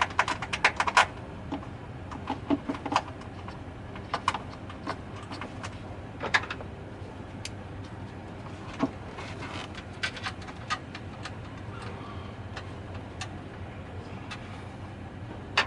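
Hand tools and metal parts clinking and clicking during repair work on a van, a quick run of clinks at first and then scattered single ones, over a steady low hum.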